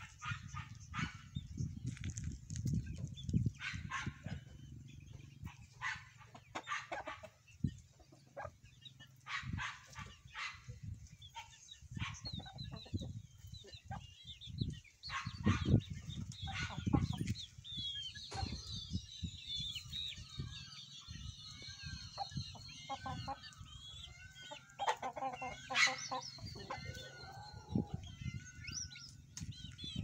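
Domestic chickens clucking near the microphone, with chicks cheeping in many short high chirps through the second half, over a low rumble.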